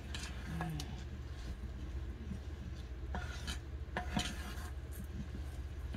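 A hand kneading mashed pumpkin and glutinous rice flour into dough in a stainless steel bowl: irregular rubbing and light knocks against the bowl's metal side, strongest about three and four seconds in, over a steady low hum.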